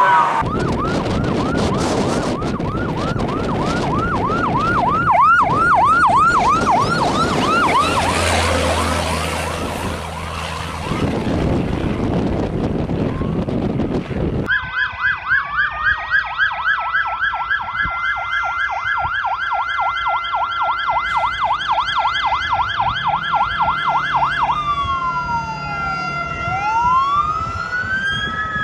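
Responding fire trucks' electronic sirens: first a fast yelp over loud engine and road noise, then, after a cut, another siren yelping that changes to a slow rising-and-falling wail near the end.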